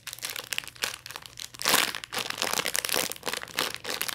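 Plastic packaging crinkling and rustling as it is handled, in a dense irregular crackle that is loudest a little under two seconds in.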